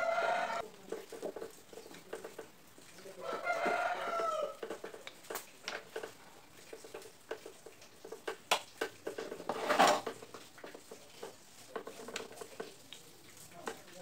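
A rooster crowing in the background: a short call at the start, then a longer crow about three seconds in. Over it come scattered clicks and knocks of a screwdriver and metal parts being handled on a small electric fan motor, with the loudest knock about ten seconds in.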